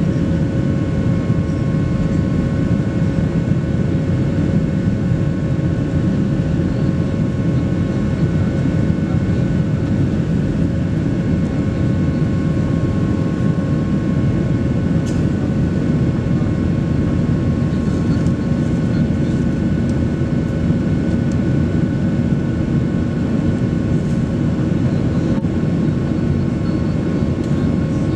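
Steady jet engine and airflow noise inside the cabin of a Boeing 737 Next Generation climbing after takeoff. A constant low noise with a few faint steady whining tones from its CFM56-7B turbofans.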